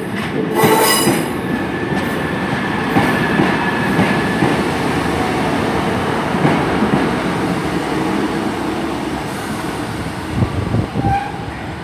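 Class 150 Sprinter diesel multiple unit running slowly into the platform, with a steady rumble of its underfloor diesel engines and wheels. A brief high-pitched squeal comes about a second in, and a few clunks near the end.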